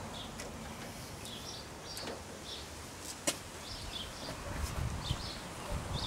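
Wires and jumper-lead clamps being handled and reconnected, with one sharp click about three seconds in. Short, high bird chirps come and go throughout.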